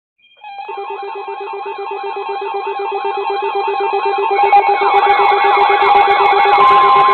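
Several weather alert radios sounding their electronic alarms at once: a fast pulsing beep, a repeating warbling sweep and steady high beeps layered together, growing louder, with another steady tone joining near the end.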